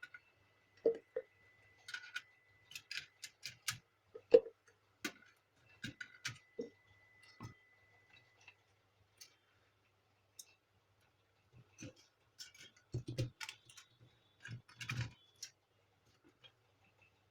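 Irregular clicks and knocks of small plastic printer parts being handled and fitted during work on the printer's gear assembly, with a few louder knocks about four seconds in and again near the end.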